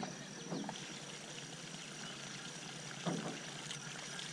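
Small splashes and gurgles of a topwater lure being pulled across calm lake water, twice briefly louder, over a steady quiet background hiss.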